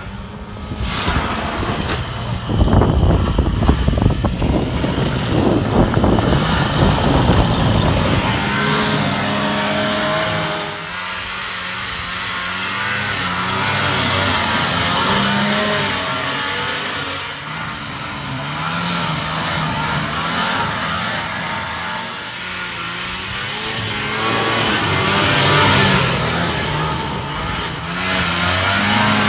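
1979 Ski-Doo Citation 300 snowmobile's two-stroke engine running under a rider, its pitch rising and falling again and again as the throttle is worked. The first several seconds are a rougher, noisier rush before the engine note stands out clearly.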